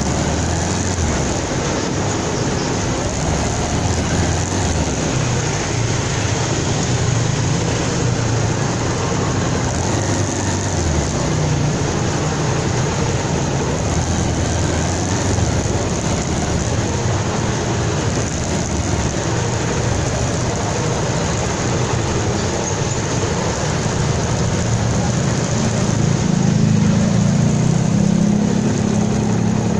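Bajaj Pulsar 220's single-cylinder engine running at low speed in slow traffic, with a truck's engine close ahead and a steady hiss of road noise. The engine note rises and grows a little louder near the end.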